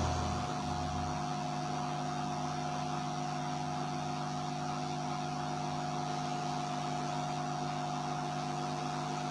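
Steady electrical hum with a constant mid-pitched whine over it. A low rumble fades out in the first second or so.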